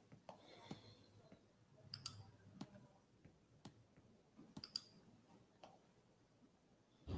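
Near silence with faint, irregular clicks and small knocks, and a louder thump near the end.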